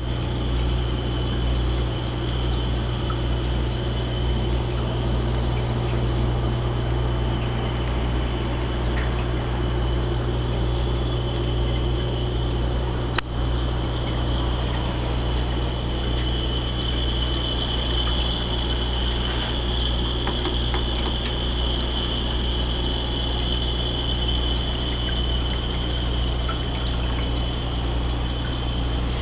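Reef aquarium and sump equipment running: a steady low pump hum under continuous trickling water from the overflow and sump, with a faint steady high whine. One sharp click about halfway through.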